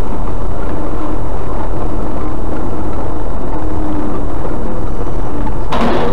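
Steady road and engine rumble heard from inside a moving car. Near the end comes a short crash from a truck colliding up ahead.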